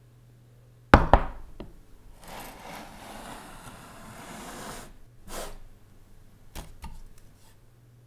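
Two sharp knocks of an object hitting a wooden table about a second in, then about three seconds of handling noise, another short burst, and a few lighter clicks on the table near the end.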